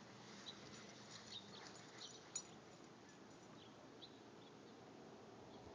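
Near silence, with a few faint, very short high chirps scattered through it and one small click about two and a half seconds in.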